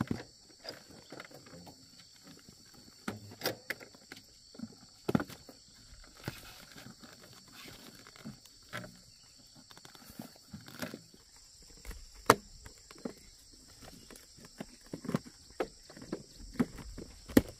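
Rustling and scattered knocks from handling woven sacks of corn and strapping them onto a motorbike with a rubber strap, with footsteps on dry corn leaves; one sharp click about twelve seconds in. A steady high drone runs underneath.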